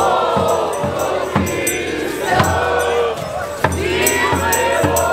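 A group of carollers singing a Ukrainian koliada (Christmas carol) together while marching, with a drum and jingles beating out a steady rhythm about twice a second.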